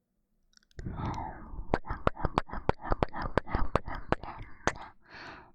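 Rapid-fire kissing close into a binaural dummy-head microphone: a quick run of sharp lip smacks, about four or five a second, with breathy mouth noise between them, starting under a second in.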